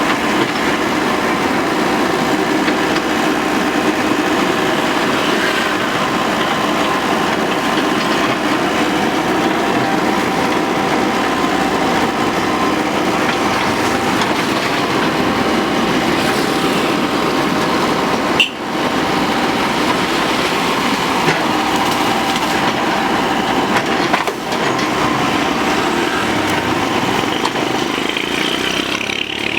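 Excavator engine running steadily as it works the bamboo. The sound breaks off briefly about two-thirds of the way through.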